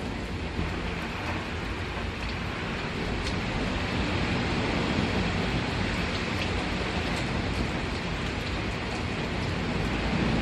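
Typhoon Jebi's wind and heavy rain: a steady rushing noise that swells slightly around the middle.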